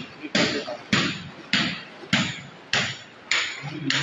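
Footsteps splashing through ankle-deep floodwater at an even walking pace, a little under two steps a second, each a sharp slosh that dies away quickly.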